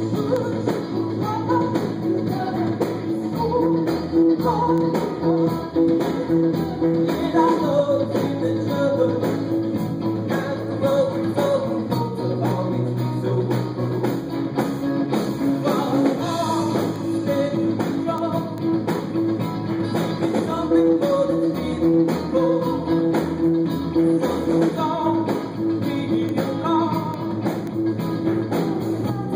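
Live noise-pop band playing an unreleased song: electric guitars over a full band, with a singing voice.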